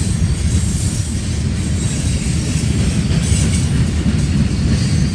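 Freight train of loaded centerbeam lumber flatcars rolling past close by: a steady, loud rumble of steel wheels on the rails, with a hiss in the highs that swells and fades.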